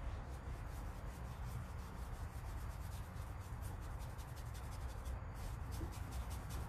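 Paintbrush working fabric paint into a dark denim jacket: soft scratchy rubbing strokes in quick succession, more of them in the second half.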